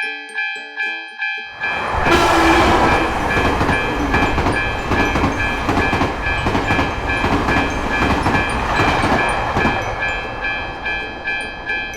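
Japanese-style railroad crossing bell clanging, about two and a half strikes a second. About a second and a half in, a train rushes through with a loud rumble and clatter that fades near the end.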